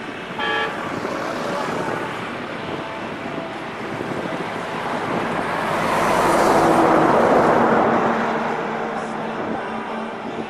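Road traffic: a short horn toot about half a second in, then a motor vehicle passing close, growing louder to a peak past the middle and fading away.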